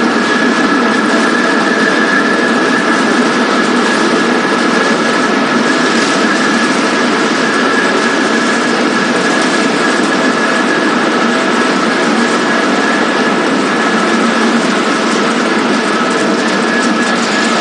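Wood pellet mill running: a loud, steady mechanical din with a constant high whine that doesn't change.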